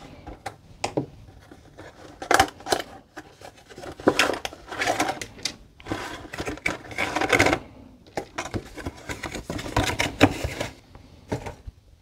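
A cardboard model-kit box being opened and red plastic figure sprues taken out and handled: irregular clicks, scrapes and rustling of card and plastic.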